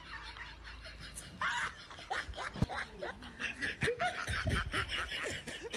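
Snickering laughter in short, irregular bursts.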